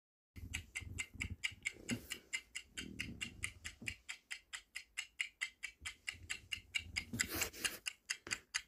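Clock-ticking countdown-timer sound effect: rapid, even ticks, several a second, marking the time left to answer. It stops near the end.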